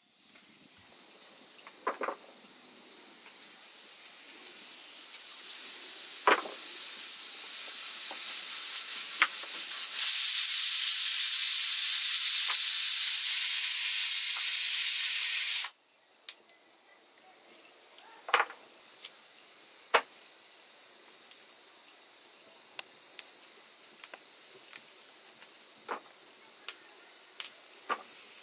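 Pressure cooker on a wood fire venting steam: a hiss that swells for about ten seconds, then holds loud and steady for about six seconds before cutting off. After that come faint, scattered sharp snaps as fiddlehead fern stems are broken by hand.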